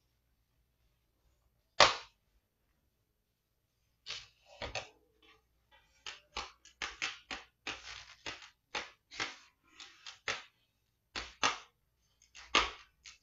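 Plastic clips of a Dell Inspiron 5585 laptop's casing snapping into place under finger pressure: one sharp snap about two seconds in, then a run of quicker, quieter clicks from about four seconds on, with another loud snap near the end.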